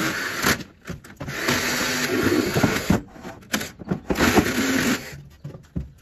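Handheld cordless power tool running in three separate runs of about one to one and a half seconds each, its motor noise with a wavering hum under it, stopping in between.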